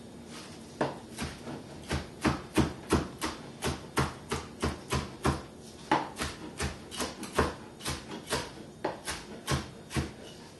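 Long kitchen knife chopping cooked bacon, a rapid, irregular run of sharp knocks of the blade on the board, about two or three a second, starting about a second in.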